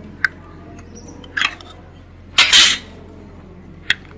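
Hard plastic clicks and clatter as a washing machine's plastic line filter housing and its wiring are handled and pulled loose, with a louder scrape about two and a half seconds in.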